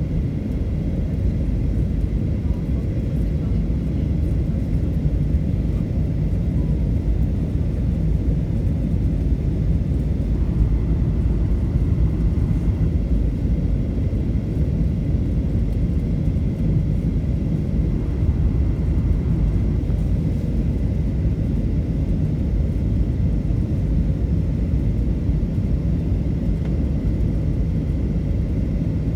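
Cabin noise inside a Boeing 737 in flight: the steady low rumble of the engines and airflow, with a faint, steady high whine above it.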